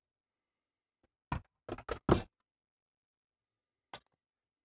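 Short hard knocks and clicks of 12 V sealed lead-acid batteries and their leads being handled and set into the opened UPS case: one knock about a second in, a quick run of four around two seconds, and a faint click near the end.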